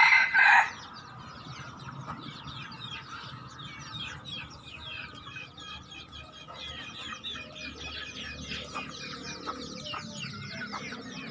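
Wild chicken calling: a loud call cuts off just under a second in. Then comes a steady background of soft clucking and many short, high chirps.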